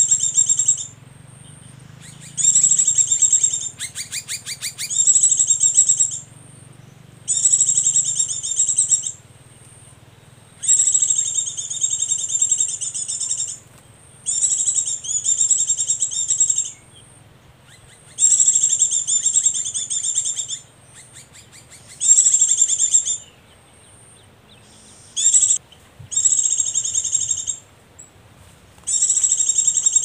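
Oriental white-eye (pleci) song in its rapid continuous 'ngecir' trill, played loud from a recording as a lure: high, fast trilling phrases one to three seconds long, repeated about a dozen times with short gaps. A brief burst of rapid clicking comes about four seconds in.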